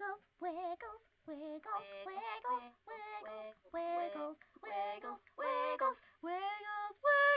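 A female voice singing a short melody alone, without accompaniment, in short separate notes that climb higher toward the end.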